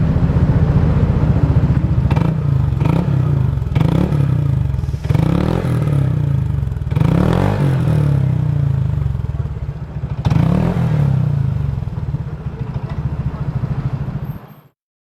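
Honda ADV150 scooter's single-cylinder engine running through a Yoshimura R-77S full exhaust system, idling with repeated throttle blips that rise and fall, most of them in the first half. The sound cuts off suddenly near the end.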